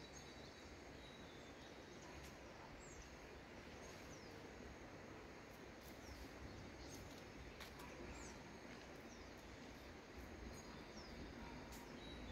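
Faint, short, high chirps of small birds, each falling in pitch, coming about once a second at an irregular pace over a steady outdoor hiss.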